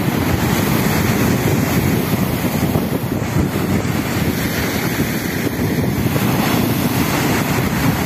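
Sea waves breaking and washing up a pebble shore in a steady surf, with wind rumbling on the microphone.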